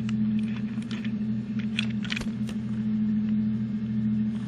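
Small electric motor of a battery-powered toy Thomas engine running with a steady hum, with scattered light clicks from the plastic wheels and couplings on plastic track.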